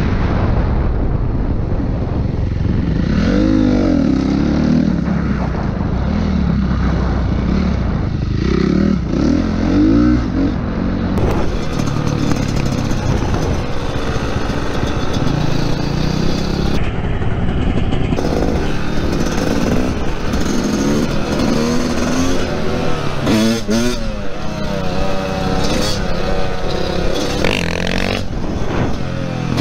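Dirt bike engines heard from onboard, revving up and dropping back again and again as the bikes accelerate along the road. The sound changes abruptly about a third of the way in, where a second bike's engine takes over.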